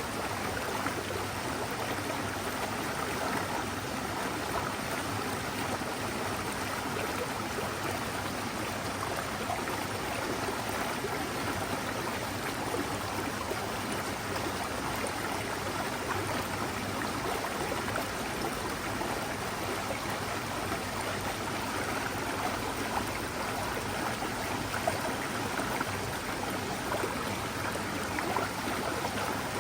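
Forest stream running steadily over rocks, an even rushing and trickling of water.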